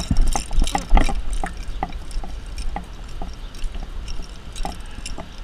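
Footsteps on pavement, about two a second, with wind rumbling on the microphone. The rumble is heaviest in the first second and eases after that.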